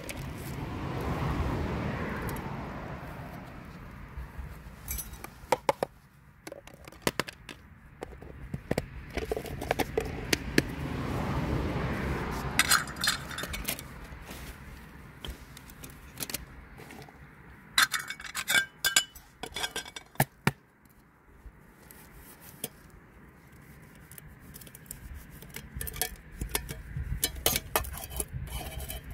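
Metal pots and utensils clinking and scraping as they are handled, in scattered bunches of sharp clinks. Behind them, a rushing sound swells and fades twice.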